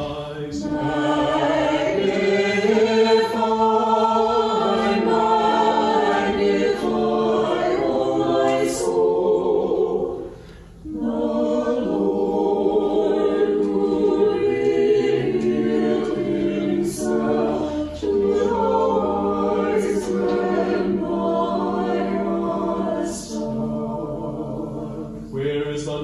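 A small choir singing an Orthodox Matins hymn a cappella, in two long sustained phrases with a short break about ten seconds in.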